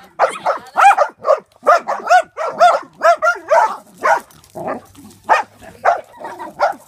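Small wire-haired dog barking rapidly and repeatedly at a small drone, high-pitched barks coming about two or three a second.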